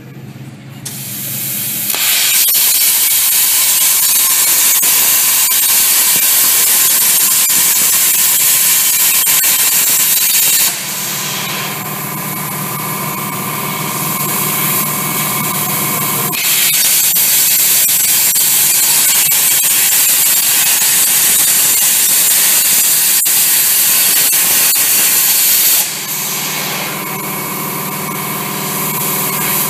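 CNC plasma torch cutting metal: a loud, steady hiss of the plasma arc. Twice it breaks off for a few seconds, once about eleven seconds in and again near the end, leaving a quieter hum with a steady tone.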